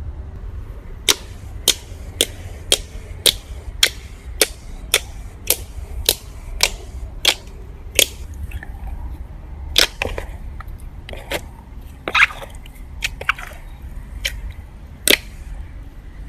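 Slime being pressed and squeezed, making sharp popping clicks, about two a second at first, then fewer and irregular. A steady low rumble runs underneath.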